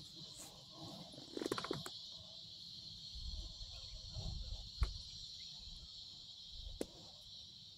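Steady high-pitched drone of insects. There are faint low rumbles and two sharp clicks, about five and seven seconds in.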